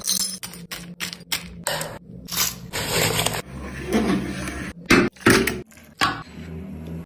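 A run of short kitchen sounds: a metal spoon scraping avocado flesh from its skin and knocking against a ceramic bowl as ingredients go in.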